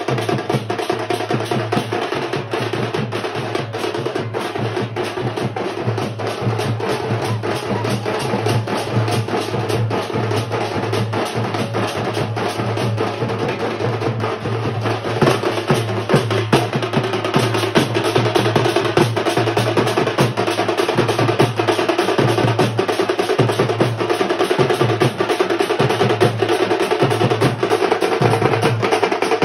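Street drum band of bass drums and snare drums beating a fast, loud, continuous rhythm, the strokes packed closely together.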